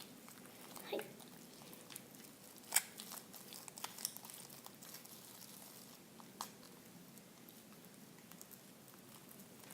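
Faint scattered clicks and small crackles of sticky homemade slime being handled, with a sharper click near three seconds in.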